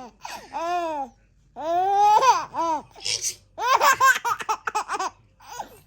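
A six-month-old baby laughing: long high squealing laughs, then, after a short hissing burst about three seconds in, a fast run of chuckles at about six a second.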